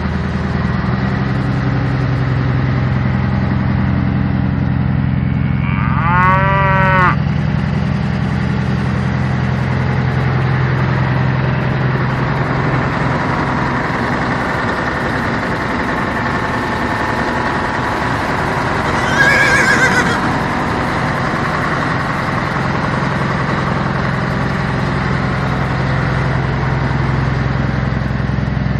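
A tractor engine idling steadily, with a cow mooing once about six seconds in and a horse whinnying once at about twenty seconds.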